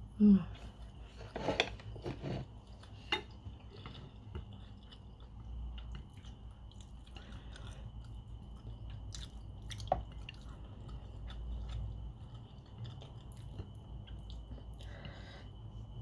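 Close-miked chewing and wet mouth smacks of a person eating rice and rendang by hand, with scattered small clicks throughout.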